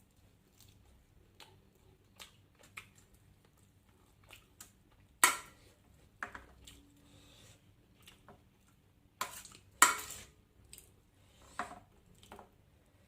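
Eating sounds: scattered clicks and clatter of dishes and cutlery with some chewing, and two sharper knocks about five and ten seconds in.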